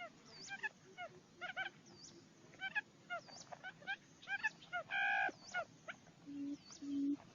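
Barred buttonquail calling: from about six seconds in, a series of low, evenly spaced hooting notes, about two a second, growing louder. Before it, many short chirping calls repeat in the background, with a single louder nasal call about five seconds in.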